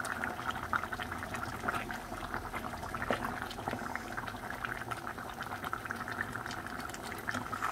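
A pot of food bubbling at a boil on the stove, a steady dense crackle of small pops.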